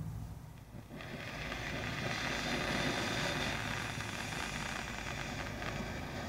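Ground fountain firework catching about a second in and spraying sparks with a steady, loud hiss.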